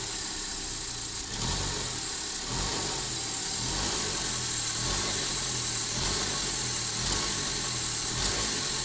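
Car engine idling with a knocking noise like rod knock, which the owner traces not to the engine but to shiny, non-magnetic metallic specks (likely aluminium) embedded in the accessory V-belt.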